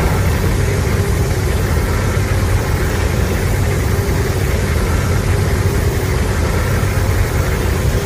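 Godzilla atomic-breath sound effect for a sustained beam: a loud, steady rumbling rush of noise with a heavy low end, held without a break.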